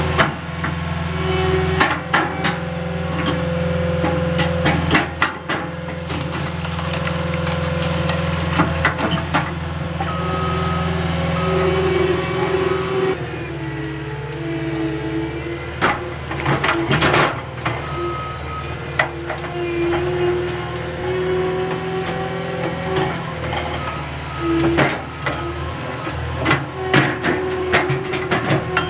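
Skid steer engine running steadily under load, driving a Halverson HWP-140B firewood processor, with a hydraulic whine that shifts in pitch. Sharp cracks and knocks of logs being cut and split come again and again, clustered around the middle and near the end.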